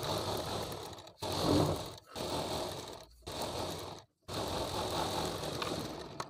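Industrial straight-stitch sewing machine stitching fabric over a foam strip, in several short runs of about a second each that break off abruptly.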